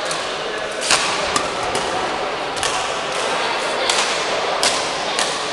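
Badminton rally: rackets striking the shuttlecock in a string of sharp cracks at irregular gaps of about half a second to a second, over the chatter of voices in a large hall.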